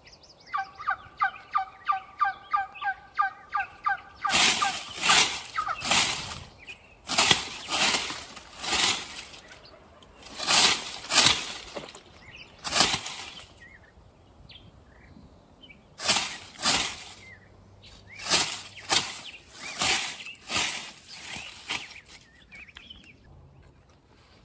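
A quick run of about a dozen turkey yelps, then a Rio Grande tom turkey gobbling loudly again and again. The tom has come in close.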